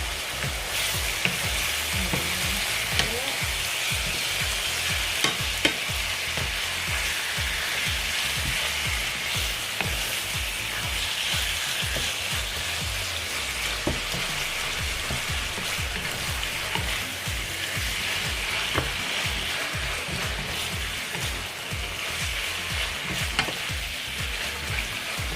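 Strips of marinated chicken sizzling steadily in hot oil in a frying pan, with sharp spits and pops throughout and the occasional scrape of stirring.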